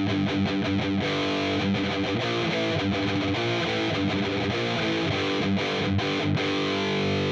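Distorted electric guitar playing a fast picked riff through the Audiority L12X, a Marshall JCM-style solid-state amp plugin, boosted by a Tube Screamer-style overdrive. It ends on a held chord that rings near the end.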